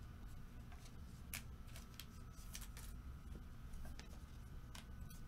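Faint, scattered soft clicks and rustles of trading cards being handled, over a steady low hum.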